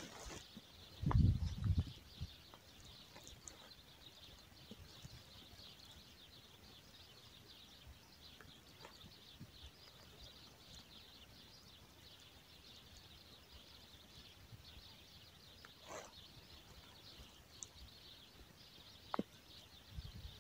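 Faint, steady twittering of many small birds, a continuous high chatter. About a second in there is a louder low thump, handling noise near the microphone.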